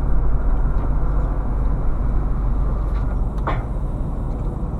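Steady road and engine rumble inside a moving car's cabin at highway speed, deep and even. A brief pitched sound cuts in about three and a half seconds in.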